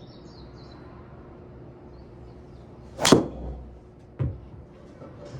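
A Titleist TSR4 driver striking a golf ball: one sharp, loud crack about three seconds in, followed about a second later by a shorter knock.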